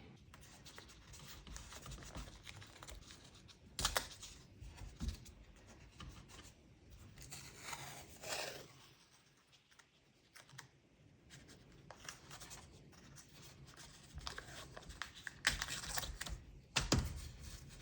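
Painter's tape being pulled off the roll, torn and pressed down by hand, in short irregular bursts with quiet stretches between.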